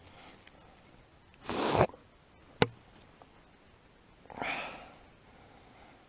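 A person sniffing sharply twice, about a second and a half in and again past four seconds, with a single sharp click between them.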